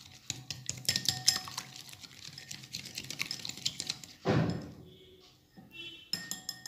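Balloon whisk beating a thin cake batter in a glass bowl: rapid clicking and scraping of the wires against the glass, with a heavier knock about four seconds in and the clicking picking up again near the end. Music plays faintly underneath.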